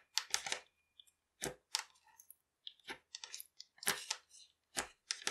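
Clear slime being folded and pressed by hand, giving irregular sticky crackles and pops as it stretches, tears and squishes together.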